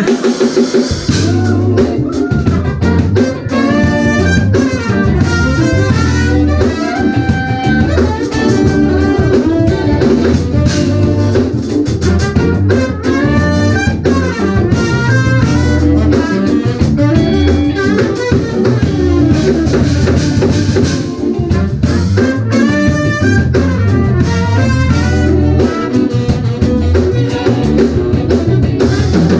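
Live jazz-fusion band of saxophone, trumpet, electric guitar, keyboards, electric bass and drum kit playing a fast ensemble passage, with horn lines over steady drums and bass.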